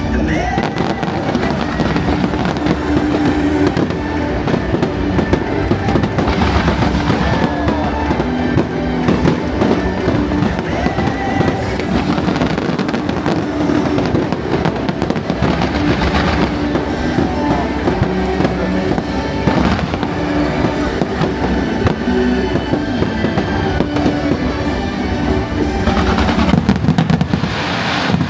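Aerial fireworks bursting and crackling in quick succession, heaviest in flurries near the middle and toward the end, over loud music.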